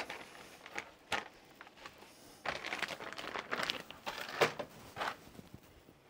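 A few light knocks, then a couple of seconds of irregular rustling and crinkling from a cleaning cloth being handled.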